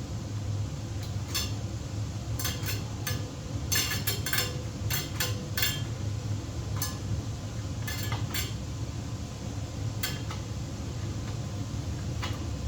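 Irregular metallic clicks and clinks of electrician's pliers twisting several stripped copper neutral wires together into a splice, over a steady low hum.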